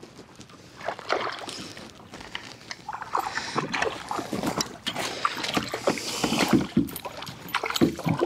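A hooked bass splashing and thrashing at the surface right beside a kayak as it is played in. The splashing is heaviest in the middle of the clip, among irregular knocks and rattles.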